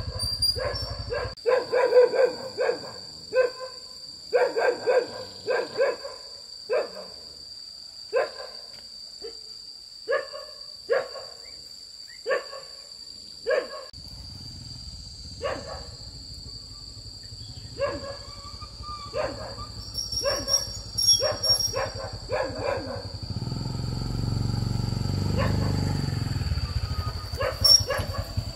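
A dog barking over and over: quick runs of short barks, with single barks a second or two apart in between. A low rumble sits underneath and grows louder in the second half.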